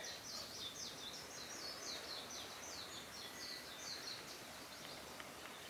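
Faint, rapid high chirping calls, about four a second, over a low steady outdoor background; the chirping dies away near the end.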